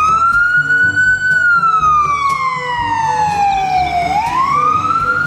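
Ambulance siren wailing in a slow wail pattern. The pitch finishes a rise about a second in, falls slowly for about three seconds, then rises again near the end.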